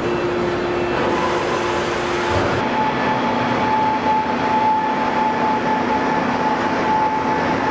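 Steady car-plant machinery noise: a wide rumble with faint held whining tones, the mix shifting about two and a half seconds in.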